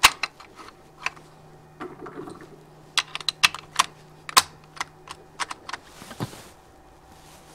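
Irregular sharp clicks and light knocks from a bolt-action rifle being handled, with a brief rustle about six seconds in.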